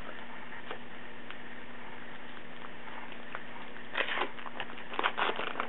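Baseball card packs and cards being handled: faint clicks, then two short bursts of rustling and crinkling about four and five seconds in, likely the next pack's wrapper being opened.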